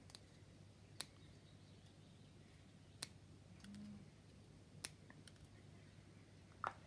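Faint, sharp clicks, a handful spaced a second or two apart, from a hobby knife cutting small parts out of a thin photo-etched metal fret.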